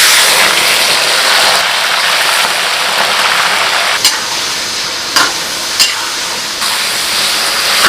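Marinated rabbit pieces hitting hot oil and frying with a loud, steady sizzle that starts all at once. A few sharp knocks come about halfway through as they are stirred.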